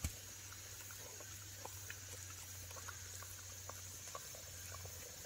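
A dog chewing and licking cherry tomatoes close by: faint, irregular small wet clicks and smacks, several a second, over a steady low hum.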